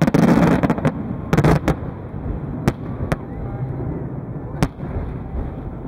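Aerial fireworks bursting: a loud burst with a short crackle right at the start, another cluster of bangs about a second and a half in, then three single sharp bangs spread over the next few seconds.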